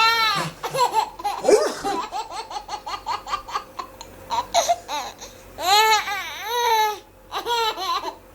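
A baby laughing hard: high-pitched laughs, with a quick run of short laugh pulses, about six a second, in the middle, then longer squealing laughs later on.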